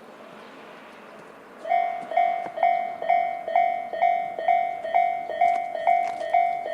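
Electronic level-crossing warning bell of a Japanese railway crossing starting up about a second and a half in, then ringing steadily at a little over two dings a second: the crossing is warning of an approaching train.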